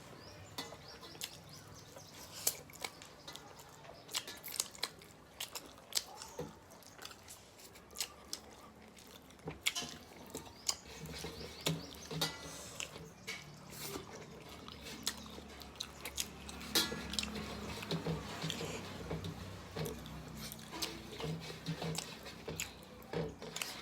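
Close-up eating sounds: chewing and lip smacks, with many irregular sharp clicks and smacks as rice and fish are eaten.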